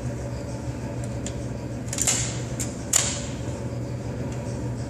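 Mechanical clacks of a Hatsan Escort 12-gauge pump shotgun being handled between shots, with three sharp metallic clacks about two to three seconds in, the last the loudest, over a steady low hum.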